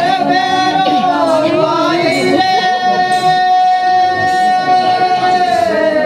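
Folk singing: a high voice holding long, steady notes, with a lower voice weaving a melody beneath it.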